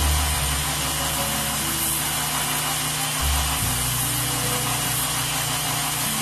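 Belt grinder running with a steel knife blade pressed against the abrasive belt over its contact wheel, hollow-grinding the blade: a steady grinding hiss.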